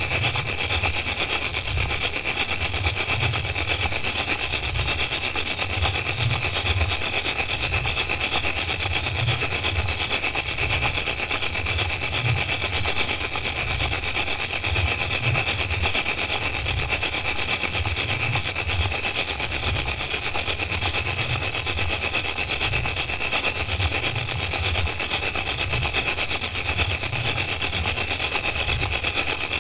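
A dense chorus of crickets chirping continuously, a fast steady trilling. A low, uneven rumble runs underneath.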